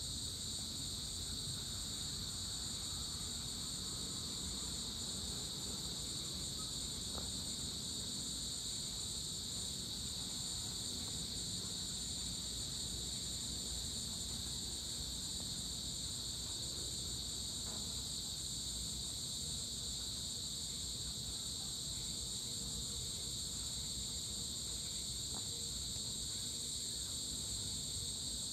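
Steady chorus of insects, a continuous high-pitched trill with no break, over a faint low rumble.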